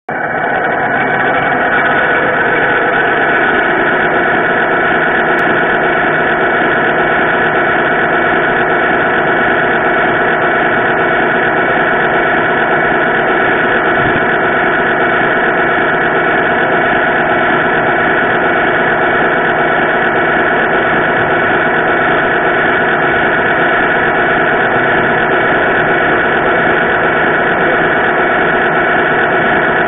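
Radio-controlled model truck giving off a steady, unchanging engine-like drone, heard up close from on board.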